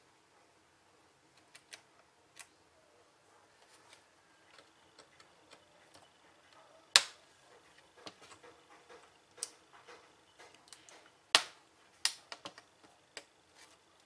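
Scattered small clicks and taps of a screwdriver and fingers working the Wi-Fi card and its fittings inside an open laptop case, with sharp, louder clicks about seven and eleven seconds in.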